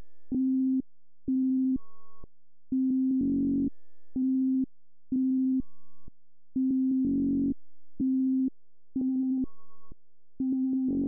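VCV Rack software modular synthesizer patch playing a sequenced loop of short electronic tones. The notes are about half a second long with short gaps between them, mostly on one low pitch, with a few higher notes and a louder, fuller note about every four seconds.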